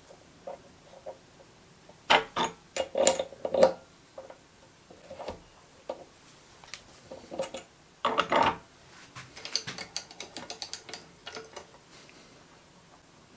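Metal clicks and knocks from setting a hex bar in a small bench lathe's chuck and tightening the chuck with a chuck key. The handling is irregular, with louder clusters about two to four seconds in and around eight seconds, followed by a run of small quick ticks.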